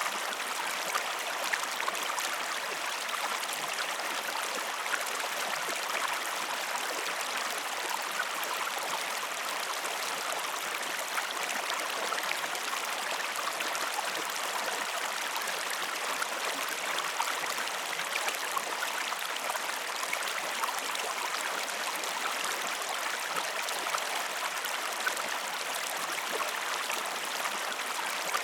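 Running water of a river flowing: a steady, unbroken rush with many small splashing ticks through it.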